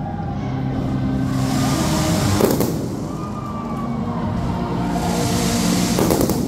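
Fireworks display, with shells going off in sharp bangs about two and a half seconds in and again near the end, over a bed of sustained tones.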